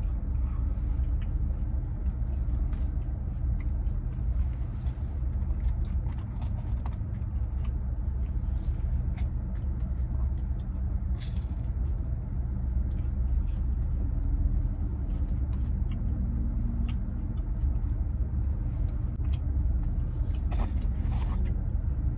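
Steady low rumble like a car engine heard from inside the vehicle, with faint scattered clicks over it.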